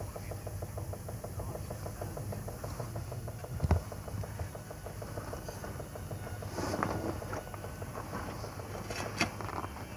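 Rhaetian Railway electric unit working slowly along the snowbound track with the snow spreader, giving a steady, rapid mechanical ticking of about six beats a second. A sharp knock comes a little under four seconds in, and there are a few shorter clanks about seven and nine seconds in.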